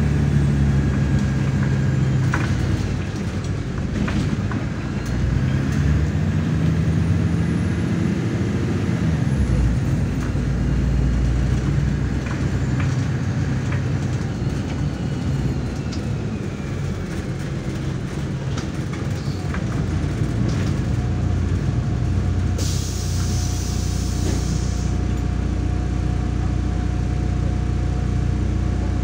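MAZ-103 city bus heard from inside: the diesel engine running under way, its pitch rising as it speeds up a few seconds in. About three-quarters of the way through comes a sharp two-second hiss of released brake air as the bus stops, and the engine then idles steadily.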